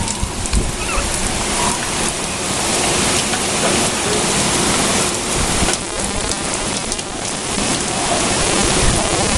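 Steady rain falling during a thunderstorm.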